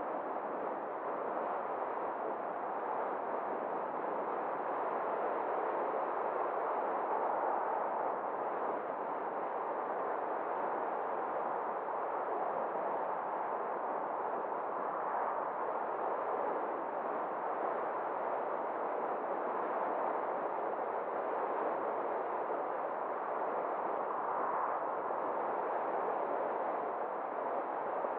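Steady rushing road and wind noise from a car driving along, swelling slightly now and then.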